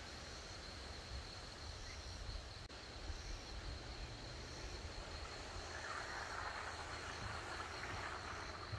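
Insects buzzing in a steady high tone, with a faint chirp repeating about once a second, over a low rumble. A rushing noise grows louder in the second half.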